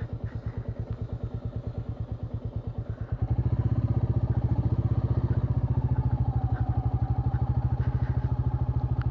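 Royal Enfield Meteor 350's single-cylinder engine running at low revs with an even thumping beat, about eight beats a second. About three seconds in it gets clearly louder and stays at that level.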